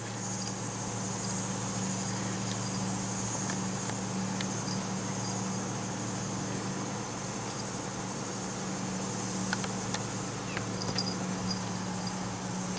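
A steady low hum with a steady high-pitched buzz or chirring over it, and a few faint ticks scattered through.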